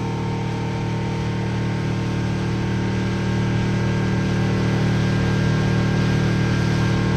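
Motorboat running at speed: a steady engine drone under an even rush of wind and water spray.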